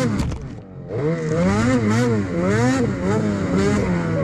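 Snowmobile engine revving up and down again and again as the throttle is worked while riding through snow. The sound drops away briefly about half a second in, then picks back up.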